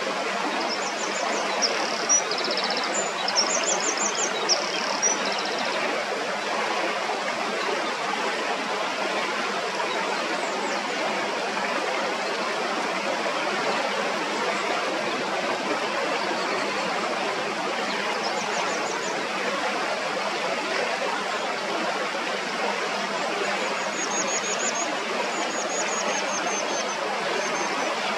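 Shallow stream running steadily over stones and around a rock. Series of short, high-pitched bird calls come in quick runs during the first few seconds, and again briefly twice later on.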